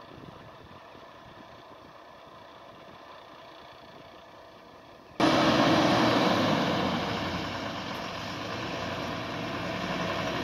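Heavy goods truck's diesel engine running as the truck approaches slowly, faint at first. About five seconds in, a loud rushing noise cuts in suddenly, then eases off and slowly builds again.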